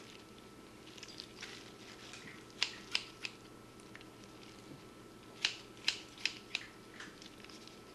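Sharp scissors snipping through raw pancreas tissue: a run of three quick cuts about two and a half seconds in, then four more around five and a half to six and a half seconds, with softer wet handling sounds between.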